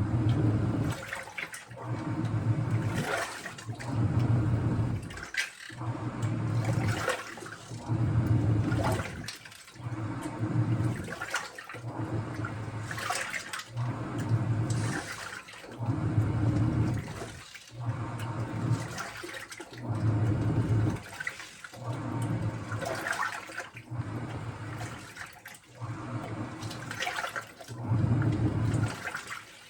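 Washing machine running, its drum turning with water sloshing in rhythmic surges about every one and a half to two seconds, each surge carrying a low motor hum.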